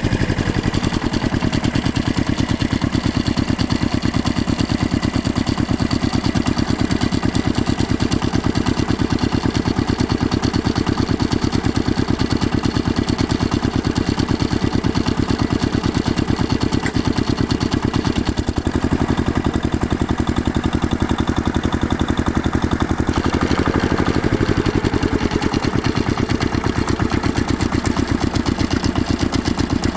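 Heavy machine engine running steadily, with a fast, even pulsing, and a brief rise and fall in pitch about two-thirds of the way through.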